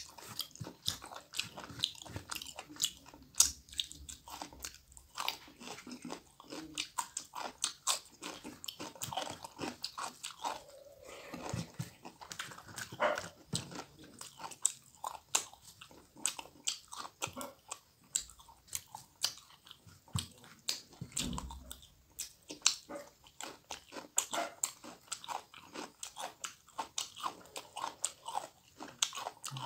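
Close-miked mukbang eating: a man chewing and biting a mouthful of rice, leaves and pork dry fry, with many irregular sharp wet mouth clicks and smacks.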